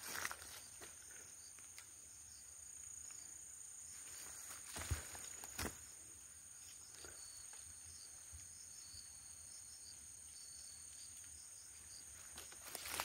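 Steady high drone of crickets or other insects, with footsteps in dry leaf litter and two sharp cracks about five seconds in, like twigs snapping underfoot. Faint high chirps come in during the second half.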